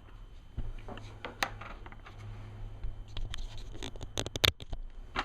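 Scratching of a marking tool drawing lines on a brass sheet, mixed with irregular clicks and taps of the tool and sheet; the sharpest click comes about four and a half seconds in.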